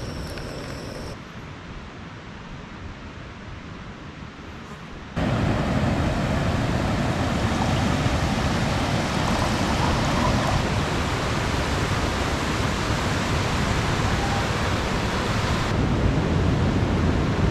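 Steady rush of a fast mountain river's whitewater, coming in loud and even about five seconds in after a quieter hiss.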